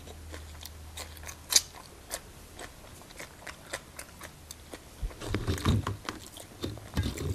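Close-up crunching and chewing of a raw choy sum stem: a string of sharp, crisp crunches. From about five seconds in come louder, duller chewing and handling sounds.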